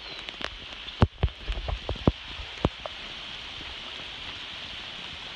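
Heavy rain pouring down onto a lake's surface, a steady hiss, with several sharp close taps in the first three seconds.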